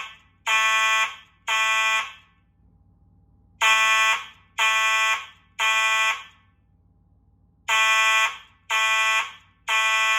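Two Simplex fire alarm horn strobes (4903-9219 and 4903-9236) sounding together in code 3, the temporal-three evacuation pattern: three loud horn blasts of just under a second each, then a pause of about a second, repeating about every four seconds.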